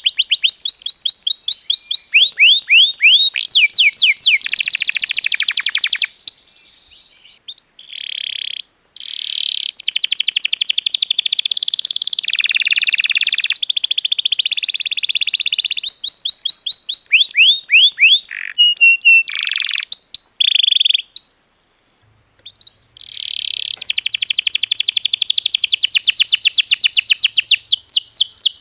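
Domestic canary singing long, rapid, high-pitched trills and rolls of repeated chirps, with short pauses about 7 and 22 seconds in.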